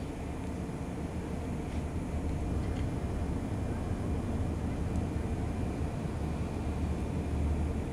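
Steady outdoor background rumble: a low, even noise with no voices or distinct events.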